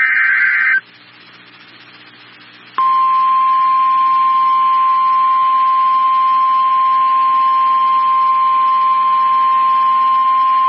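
Emergency Alert System broadcast of a severe thunderstorm warning: a screeching SAME data burst ends under a second in, and after a short gap the steady single-pitch NOAA Weather Radio warning alarm tone starts about three seconds in and holds. The tone signals that a warning message is about to be read.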